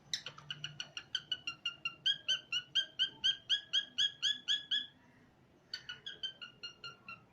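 Cockatiel calling in a fast run of short, repeated chirping notes, about four or five a second, getting louder partway through. The calls break off about five seconds in, then start again.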